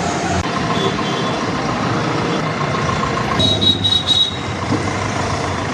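MIG welder arc crackling steadily while welding steel on a JCB loader's frame, with a brief high-pitched tone a little past halfway.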